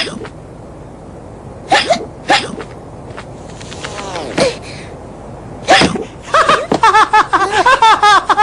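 Cartoon character hiccuping: two sharp hiccups about half a second apart, a short curving squeak, then another loud hiccup. From about six seconds in comes a fast run of high-pitched chattering babble.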